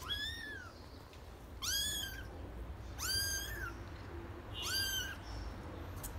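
Kitten meowing four times: short, high-pitched calls that rise and then level off, about one every one and a half seconds.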